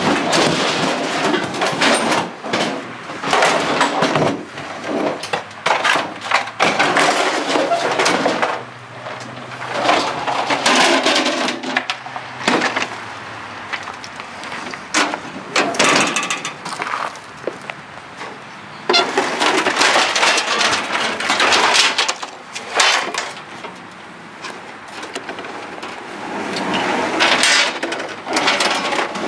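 Emptied refrigerator cabinet scraping and knocking against a pickup truck bed as it is wrestled in, in irregular bursts of clatter with quieter pauses between them.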